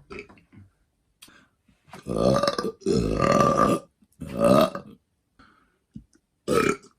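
A man burping loudly: three long burps one after another starting about two seconds in, and a shorter one near the end.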